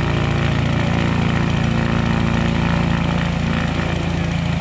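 SE5A biplane's piston engine running steadily with its propeller turning, at an even, unchanging speed.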